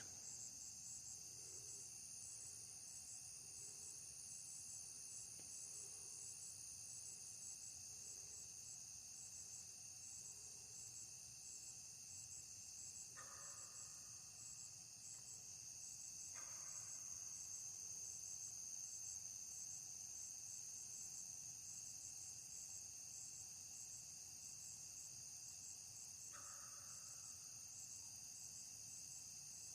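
Steady, high-pitched chorus of night insects, crickets, trilling without a break. A few faint low notes repeat about once a second in the first third, and three brief soft sounds come later.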